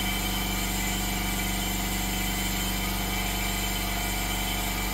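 Steady machine hum with several held tones, unchanging, and no handling or tool noises over it.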